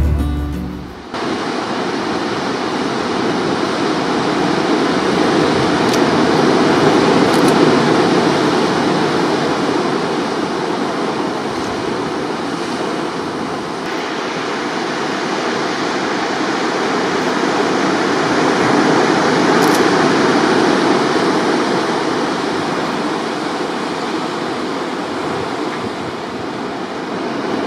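Ocean surf breaking in a rocky cove below, a steady rushing wash that slowly swells and eases.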